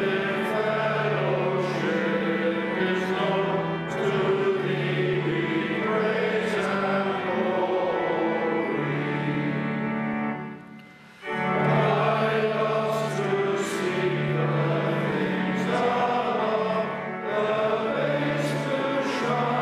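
A large group of men singing together, over steady held low notes. The singing breaks off briefly about ten seconds in, then starts again.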